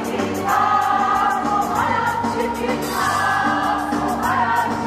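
Choir singing a song with instrumental accompaniment, the voices rising and falling in phrases a second or so long over a steady low bass line.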